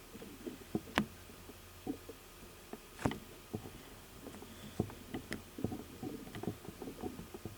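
Close, quiet sounds of painting a nail with black gel paint: soft brush dabs and small scrapes, with a few sharp little clicks of the brush or tools.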